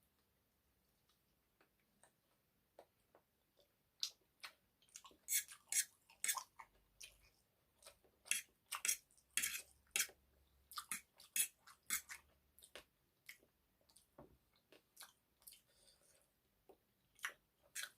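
Close-up chewing of egg noodles with chicken curry: after about four seconds of near quiet, a quick, irregular run of sharp mouth clicks and smacks, several a second.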